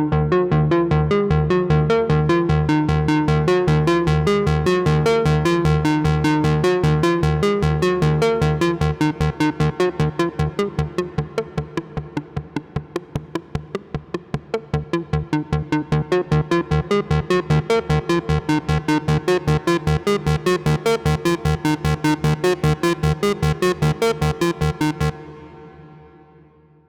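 Behringer Odyssey analog synthesizer, a clone of the ARP Odyssey, playing a fast, even run of short repeated notes. The notes grow quieter for a few seconds in the middle, then come back to full level. They stop about 25 seconds in, leaving a short fading tail.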